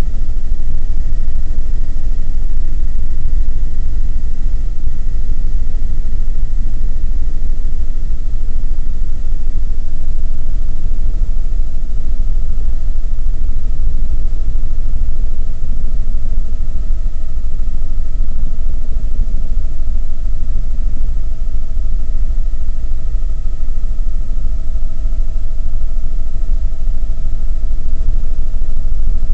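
Helicopter in cruising flight heard from inside the cabin: a loud, steady rumble of rotor and engine with a constant whine held at one pitch.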